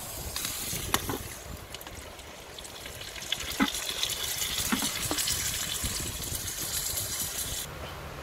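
Cooking oil pouring from a plastic bottle onto raw goose meat in a clay pot: a steady gushing pour with a few light knocks, which stops abruptly near the end.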